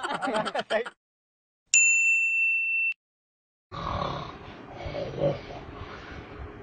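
A single steady electronic ding tone, held for about a second and cut off cleanly, as a sound effect at the scene change. Then, from about four seconds in, a man snoring in his sleep, with rough breaths that swell and fade.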